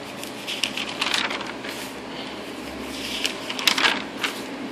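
Pages of a paper sales circular rustling and crackling as they are handled and turned, in a series of short rustles.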